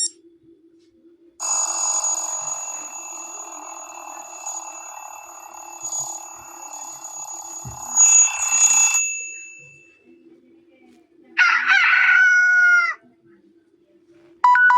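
Samsung Galaxy S2 ringtone and alert sounds played back one after another. First comes a long sound lasting about seven and a half seconds, a rushing hiss with steady high tones, ending with a louder flourish. Then a short call of about a second and a half whose pitch falls at the end, and near the end a new tone of repeated two-note beeps begins.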